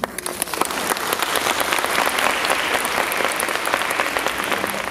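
Audience applauding: clapping breaks out suddenly, holds through the middle and dies away near the end.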